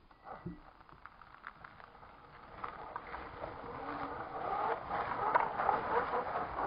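Electric RC rock crawler driving over snow: motor and gear drivetrain whirring while its Mickey Thompson Baja Claw scale tyres crunch through the snow with many small crackles, growing louder from about halfway through as it comes close.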